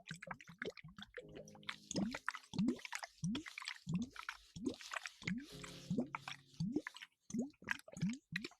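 Wet squishing and bubbly plops of lather being worked by hand, as in ASMR hair washing: a steady run of short popping sounds, each rising quickly in pitch, about two a second.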